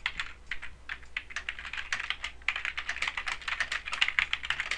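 Computer keyboard being typed on quickly: a fast, uneven run of key clicks as a line of text is entered.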